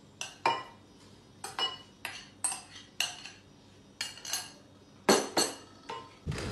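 A metal spoon clinking and tapping against a glass bowl and glass blender jar as walnuts and cookie crumbs are knocked in: about a dozen separate sharp clinks. Right at the end the blender's motor starts up.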